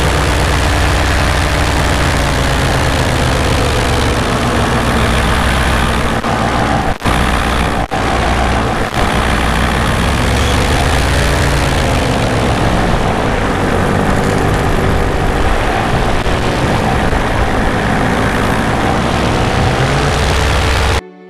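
Paramotor engine and propeller running steadily in flight, the pitch wavering a little as the throttle changes, with wind rushing over the microphone. The sound briefly cuts out twice about seven and eight seconds in.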